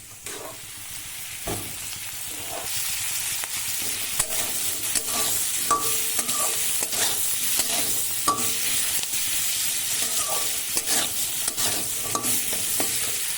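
Chopped vegetables (capsicum, carrot, onion and tomato) sizzling in hot oil in a metal kadai while being stirred, the spatula knocking and scraping against the pan again and again. The sizzle grows louder about three seconds in.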